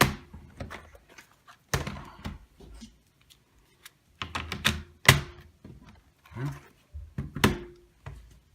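Hard plastic knocks and clicks from a Dell Inspiron 15 laptop being handled as its battery is fitted back in: about a dozen separate thunks, some with a short ring, with the loudest about five and seven and a half seconds in.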